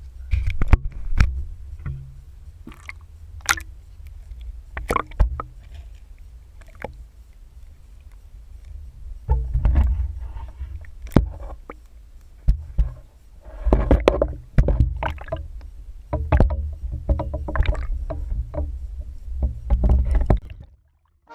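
Wind rumbling on the microphone, with a run of sharp knocks and water splashes as a caught bass is handled and released.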